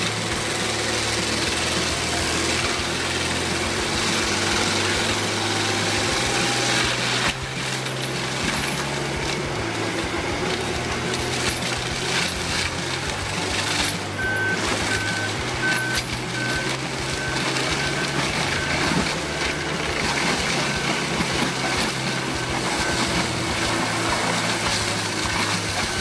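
Heavy machinery running with loud, continuous engine and working noise. From about halfway on, a series of short high beeps repeats about twice a second.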